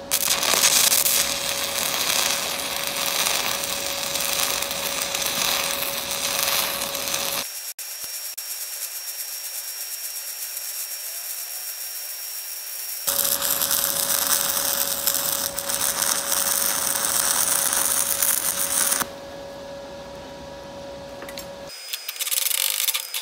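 Stick-welding arc of an E6010 rod on DC electrode-positive at about 90 amps, from a BlueArc 200STI inverter welder, run with a whip-and-pause technique. The arc crackles steadily and stops about 19 seconds in, with a faint steady hum underneath.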